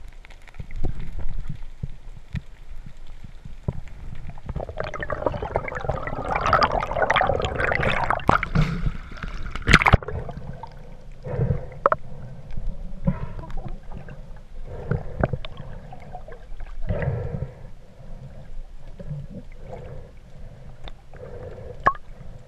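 Muffled underwater sloshing and gurgling heard through a submerged action camera, with short swishes and knocks. A louder, denser stretch of bubbling runs from about five to ten seconds in and ends in a sharp knock.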